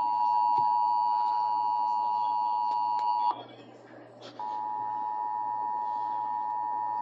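Emergency Alert System two-tone attention signal, a steady dual tone sounding for a monthly test. It cuts off about three seconds in, and after a quiet gap of about a second a steady tone starts again and holds.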